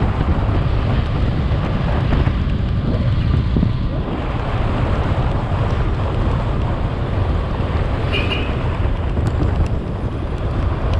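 Wind rushing over the microphone while riding a motorcycle, with the bike running underneath. A short high beep sounds about eight seconds in.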